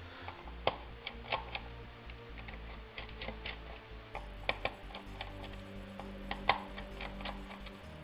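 Small irregular clicks and ticks from a screwdriver working small screws out of an HP Pavilion dv5000 laptop's underside, over a steady low hum.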